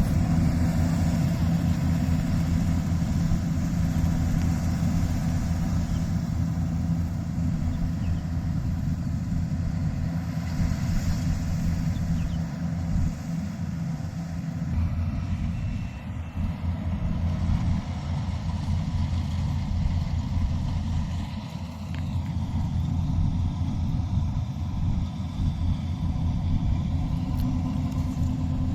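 Yanmar combine harvester's diesel engine running steadily, a low drone with a rumble that dips briefly a couple of times.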